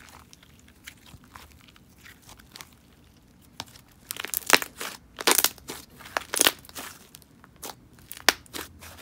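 Hands kneading and squishing a thick, fluffy clay slime: soft handling sounds at first, then from about three and a half seconds in a run of sharp clicks and pops.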